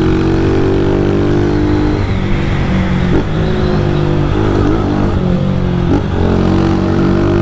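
Motorcycle engine running under way, held at steady revs, dropping in pitch about two seconds in and wavering up and down before settling again near the end, with wind noise on the helmet microphone.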